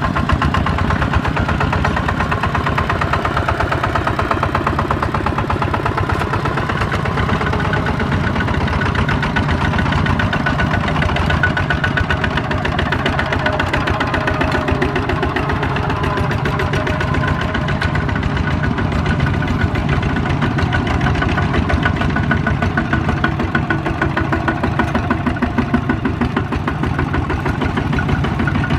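Single-cylinder diesel engines of Kubota RT-series two-wheel walking tractors (power tillers) running steadily, with a rapid, even chugging.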